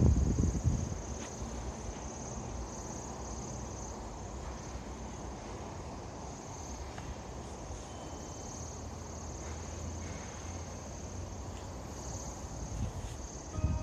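Insects buzzing in a steady high drone that swells and fades slightly, over a low rumble of wind on the microphone that is loudest in a short gust at the very start.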